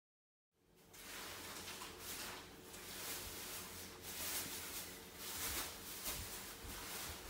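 Faint background noise that starts about half a second in: soft rustling that swells and fades every second or so, over a steady low hum.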